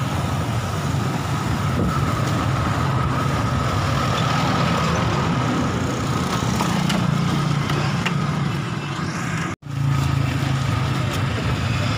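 Steady mechanical hum of a running motor or engine, with a constant higher whine over a low drone, broken by a split-second dropout about three-quarters of the way through.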